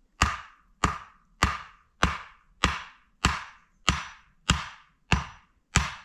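A tool striking wood ten times at a steady pace, about one blow every 0.6 seconds, each with a short ringing tail.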